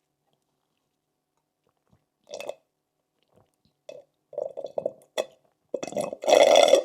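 A person drinking in a few quick gulps, then a loud breathy exhale or gasp near the end.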